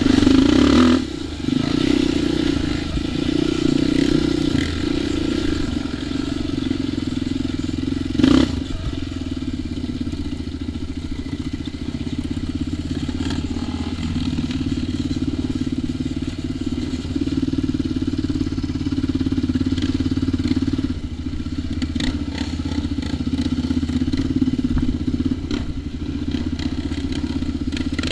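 ATV engine running steadily under way, its pitch shifting a little with the throttle, with a short drop off the throttle about a second in and a sharp knock about eight seconds in.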